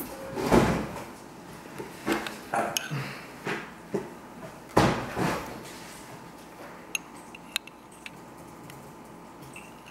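A metal spoon stirring thick yogurt in a glazed ceramic crock: several knocks and scrapes of the spoon against the crock in the first five seconds or so, then only a few faint clicks.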